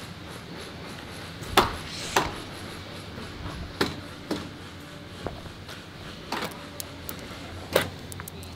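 A series of sharp knocks, about seven, irregularly spaced, the loudest about one and a half seconds in and near the end, over a steady low background hum.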